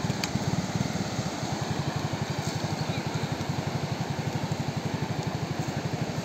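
A small engine idling nearby, a steady fast low throb, over the wash of surf.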